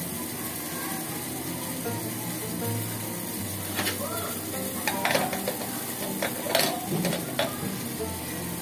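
Tea boiling in an aluminium pot on a gas burner, a steady bubbling hiss, with several light knocks and clinks in the middle seconds.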